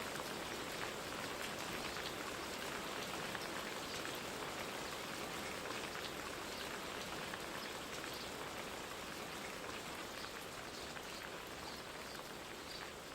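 Steady rain falling: an even hiss dotted with many small drop ticks, with no machinery running.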